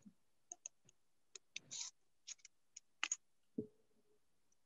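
About a dozen light, irregularly spaced clicks and taps over an otherwise silent background, with a short low sound and a brief hum about three and a half seconds in.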